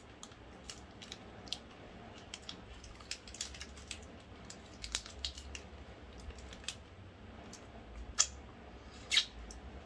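Candy wrapper on a KitKat being handled and unwrapped: a scatter of small crinkles and crackles, with two sharper clicks near the end.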